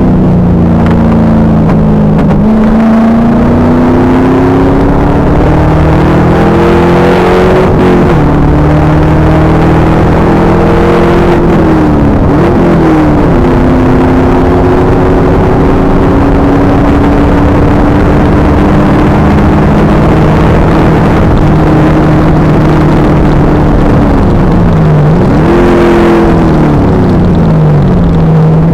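2000 Pontiac Trans Am Firehawk's V8 engine running hard on track, very loud. Its pitch climbs under acceleration, drops sharply near 8 seconds in, holds steady through a long stretch, then falls and climbs again twice near the end.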